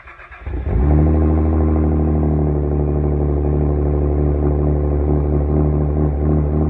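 Saab 9-3's turbocharged V6 through a straight-piped exhaust with the mufflers deleted: the starter cranks briefly, the engine catches under a second in, and it settles into a loud, steady idle.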